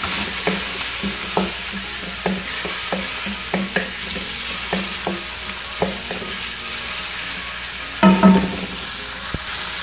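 Diced chicken breast sizzling in hot oil with onion and garlic in a large wok, stirred with a wooden spoon that scrapes the pan in repeated short strokes. About eight seconds in comes a brief louder pitched sound.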